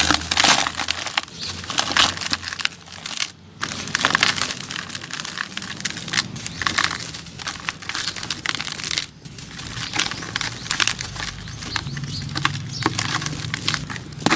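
Clumps of crunchy sand crumbling in a bucket: a continuous, dense crunching and crackling with many sharp snaps, pausing briefly twice.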